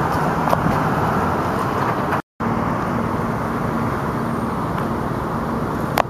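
Steady street traffic noise, broken by a short drop to silence about two seconds in; after it a faint steady hum sits under the traffic.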